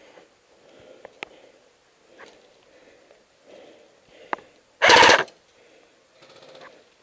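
Rustling movement with a few sharp single snaps of airsoft gunfire, and a loud half-second burst of noise about five seconds in.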